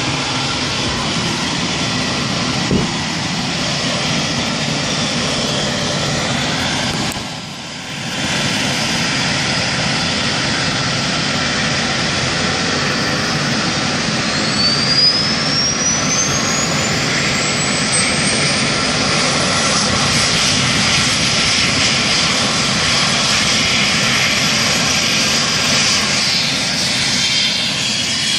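Eurocopter EC135 air ambulance helicopter running on the ground: a steady turbine and rotor rush with a high whine. Midway through, the whine rises in pitch for several seconds and then holds, as the turbines spool up ahead of lift-off.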